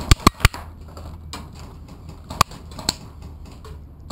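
Airsoft gunfire: a quick burst of four sharp clicks at the start, then two single clicks about two and a half and three seconds in.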